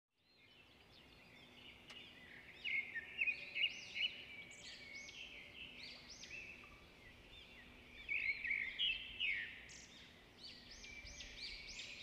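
A flock of small birds chirping and twittering together in rapid, overlapping calls, with louder bursts around three seconds in and again around eight to nine seconds in.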